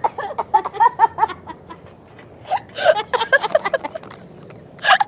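Girls laughing in short, choppy bursts, with a brief lull near the middle.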